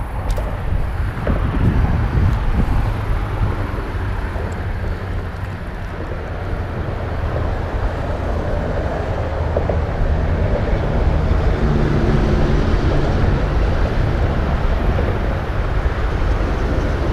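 Steady rumble of highway traffic on the overpasses overhead, growing a little louder about ten seconds in, with some wind on the microphone.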